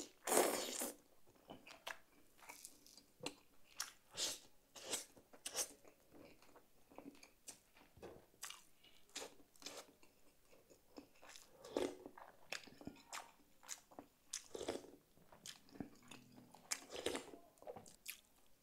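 A person chewing and smacking on tender boiled beef rib meat eaten by hand, a run of irregular mouth clicks and smacks.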